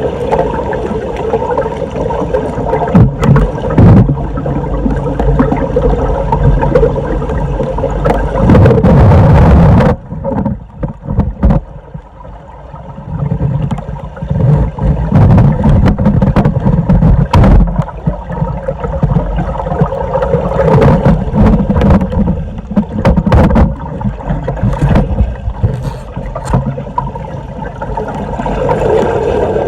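Floodwater draining into a street storm drain, a loud continuous gurgling rush with scattered knocks. The flow eases briefly about a third of the way in.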